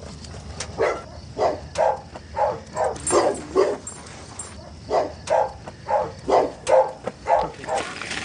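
A dog barking over and over, about two loud barks a second, with a short pause about halfway through.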